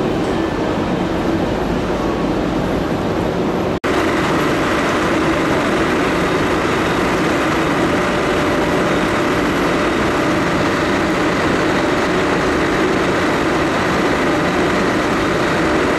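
Electric train running steadily, a constant noise with a steady hum and whine from its equipment. The sound cuts out for an instant about four seconds in.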